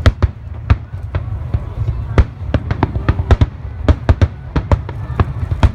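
Fireworks going off in a rapid barrage, several sharp bangs and crackles a second over a continuous low rumble.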